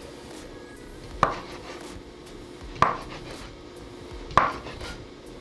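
Chef's knife cutting through a thick sausage and striking a wooden cutting board: three chopping knocks about a second and a half apart.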